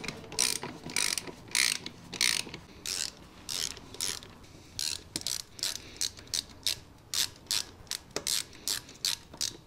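Hand ratchet clicking in repeated short strokes, about two a second, as bolts on a motorcycle's front fork clamp are tightened. The strokes get shorter and quicker in the second half as the bolts come up tight.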